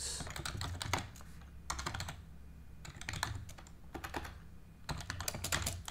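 Typing on a computer keyboard: several short bursts of keystrokes with brief pauses between them.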